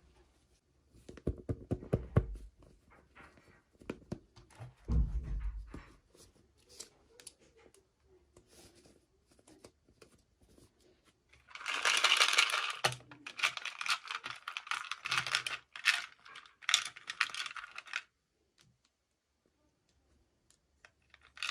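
Toy packaging being handled and torn open: a few soft knocks and handling sounds, then about six seconds of crinkling and tearing starting near the middle.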